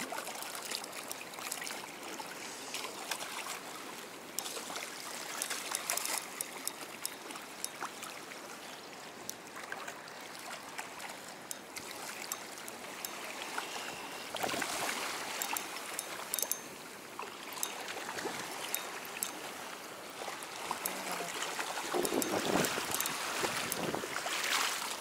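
River water running and splashing as a hooked shad is fought at the surface and drawn into the shallows, with many short light clicks throughout and louder splashing near the end.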